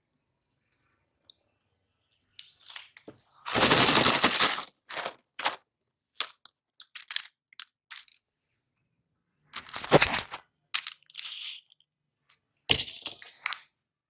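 Hard candy clattering and cracking as it is crushed in a meat grinder, in irregular crunching bursts with short pauses between them. The longest and loudest burst comes about four seconds in.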